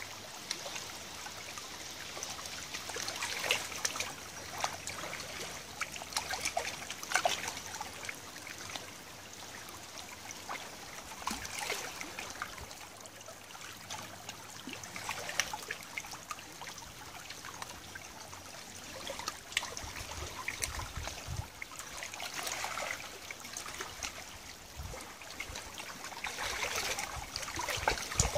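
Shallow tidal river water trickling and lapping over a gravel bank, with many small irregular drips and splashes. A few low rumbles come in near the end.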